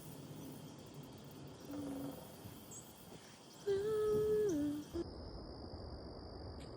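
A woman humming: a brief low note, then a louder note held for about a second that drops in pitch at the end.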